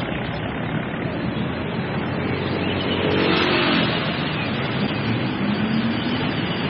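Busy road traffic: cars and motor scooters driving past. One passes close about three seconds in, its engine note falling as it goes by, and another engine rises in pitch near the end.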